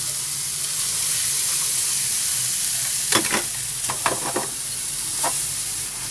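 Diced luncheon meat and chopped garlic chive flowers sizzling steadily in a nonstick frying pan. From about halfway through, wooden chopsticks clack against the pan in short clusters as the food is stirred.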